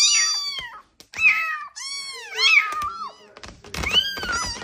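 A cat meowing repeatedly, a series of separate rising-and-falling meows, with a few knocks near the end.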